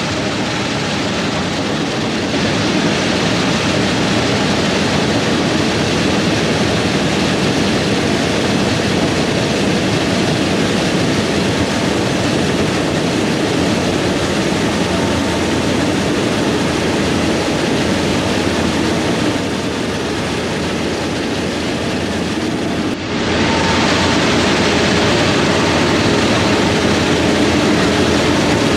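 Heavy farm machinery running steadily under load, a continuous engine and machine noise. About 23 seconds in the sound changes abruptly to a slightly louder running sound with a few steady hum tones in it.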